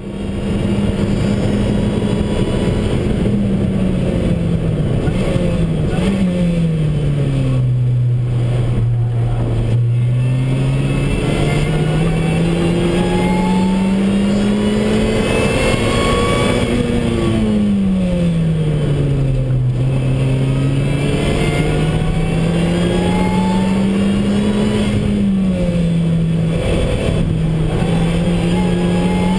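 Lotus Exige S engine heard from inside the cabin while lapping a track. The engine note climbs slowly under acceleration and falls away more quickly several times, with abrupt steps at gear changes, over steady road and wind noise.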